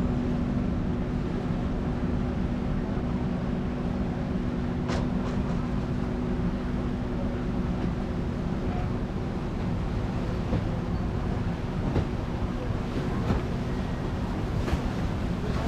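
Passenger ferry running under way: a steady low engine hum and rumble that holds one pitch, with a few brief sharp clicks.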